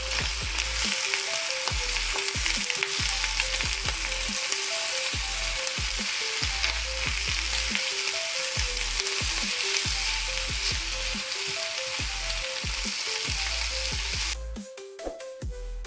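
Food frying, a steady hissing sizzle that stops abruptly about fourteen seconds in.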